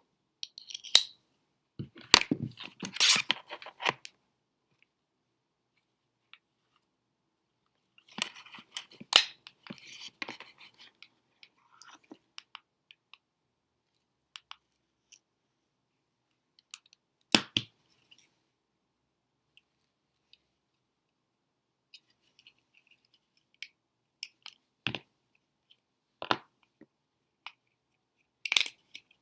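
Hard plastic parts of a Black Diamond Cosmos headlamp being handled and pried during disassembly: two bursts of rattling clicks and scraping in the first half, then a few single sharp clicks spaced seconds apart, with silent stretches in between.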